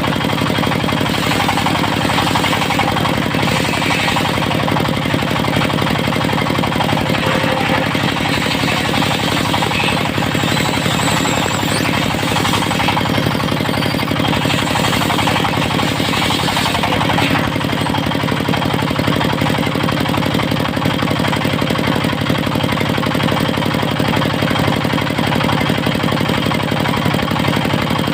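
Diesel engine of a portable circular sawmill running steadily with a fast, even knock, a bit more hissy in the first half.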